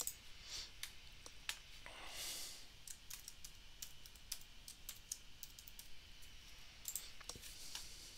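Faint computer keyboard typing in short irregular runs of key clicks, with a mouse click or two among them.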